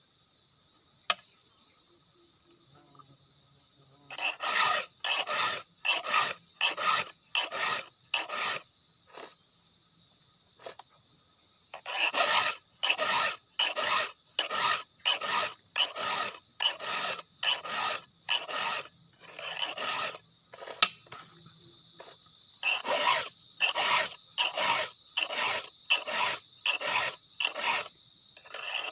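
A chainsaw file rasping across the chain's cutter teeth in runs of quick strokes, about two a second, with short pauses between runs as each tooth is sharpened. Steady insect chirring underneath.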